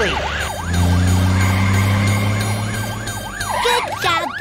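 Cartoon ambulance siren yelping rapidly, about three rising-and-falling sweeps a second. A low steady drone sits underneath from about half a second in until near the end.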